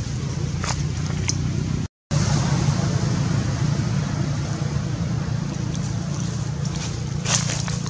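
Steady low outdoor background rumble. It cuts out for a moment about two seconds in, and a few short crackles come near the end.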